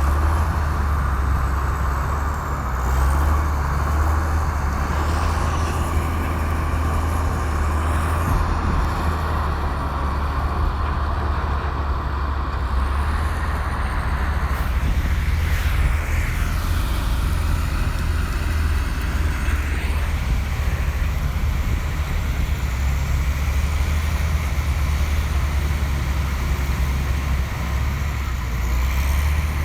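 Komatsu bulldozer's diesel engine running with a steady deep drone and a constant hiss of mechanical noise, with faint high-pitched squeals now and then.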